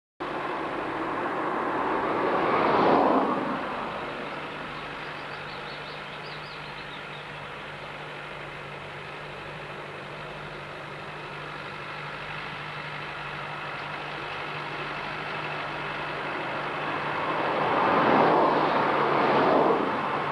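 Ford 7710 tractor engine running steadily under load, pulling a New Holland 644 round baler through grass silage. It swells up loud and fades away twice, first about three seconds in and again near the end, as the outfit passes close by.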